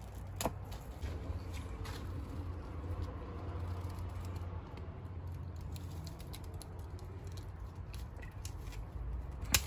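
Hand pruning shears snipping woody thyme and rosemary stems: a sharp click about half a second in and a louder one near the end, with small crackles and rustles of the foliage between, over a low steady rumble.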